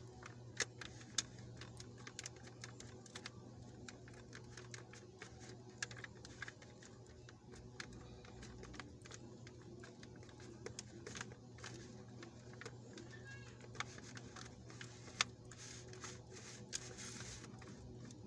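Metal spoon clicking and scraping irregularly against a stainless steel bowl while mashing canned sardines, with a steady low hum underneath.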